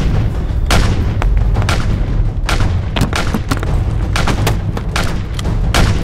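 Rapid semi-automatic pistol fire: sharp shots, about three a second and unevenly spaced, over a steady low rumble.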